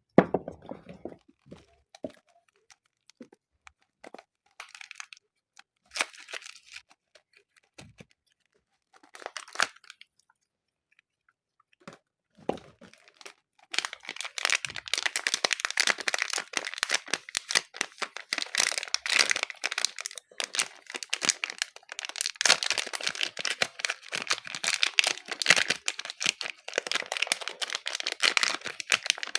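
Soap being unwrapped: scattered taps and short rustles of handling, then from about halfway in a dense, continuous crinkling and tearing of its wrapper.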